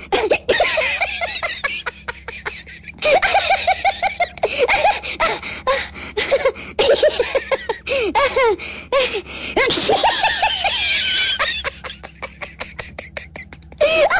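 A person laughing in long fits of rapid, high-pitched 'ha-ha' bursts, broken by stretches of quick, wheezy gasping breaths between the fits.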